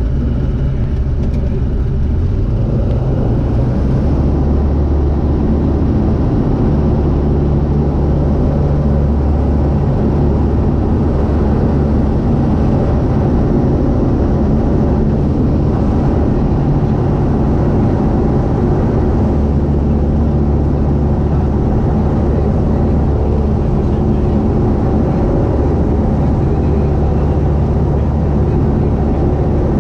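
Single-engine light aircraft's piston engine and propeller running at takeoff power, heard inside the cockpit through the takeoff roll, liftoff and climb. The note steps up about two seconds in as power comes on, then holds as a steady drone.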